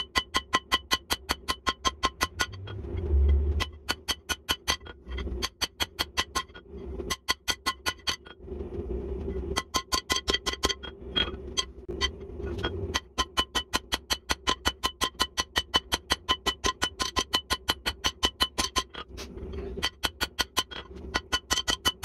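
Hand hammer striking a red-hot jackhammer bit on a steel anvil, about three to four blows a second, each with a bright ring, in runs broken by short pauses. The hard bit steel is being drawn out into a bick taper.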